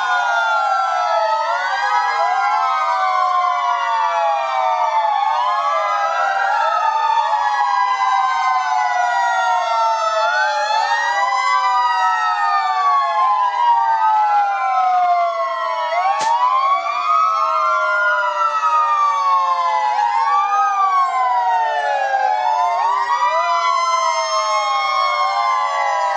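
Several fire engine sirens wailing at once and out of step, their rising and falling tones overlapping in a dense chorus. A single sharp click sounds about sixteen seconds in.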